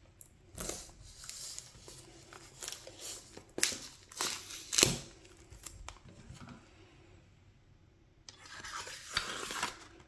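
A replica knife and its scabbard handled against a shrink-wrapped cardboard box: a few sharp clicks and scrapes, the loudest about five seconds in, then a longer scraping rustle near the end.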